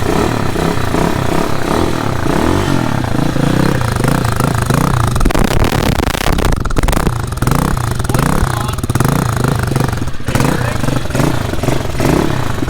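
Hawk 250 dirt bike's single-cylinder four-stroke engine running just after its first start, still warming up, its revs rising and falling unevenly. The owner reckons the carburetor needs adjusting.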